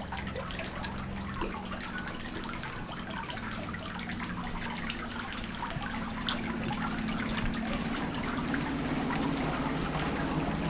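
Water lapping and trickling against a moored yacht's hull, with many small drips and splashes, over a low steady engine hum that grows louder in the second half.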